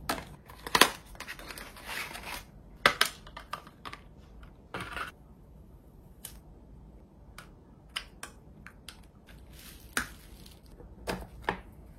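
Handling of a new SSD and a drive dock: scattered small clicks, scrapes and crinkles of plastic and packaging, with a few sharper snaps.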